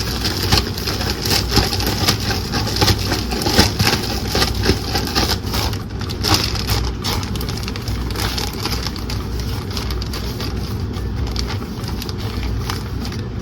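Chicken thighs being shaken in a closed bag of dry batter mix to coat them: a steady run of irregular rustling and crackling from the bag.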